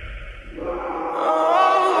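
Music: a low rumble gives way about half a second in to a choir-like chord of sustained voices that swells and holds.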